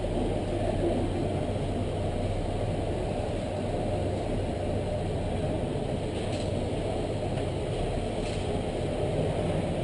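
A steady, low hum of running machinery, with a couple of faint taps partway through.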